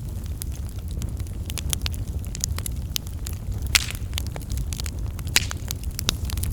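Fire burning, with a steady low rumble and frequent sharp crackles and pops; the loudest pops come a little past the middle and about two-thirds of the way through.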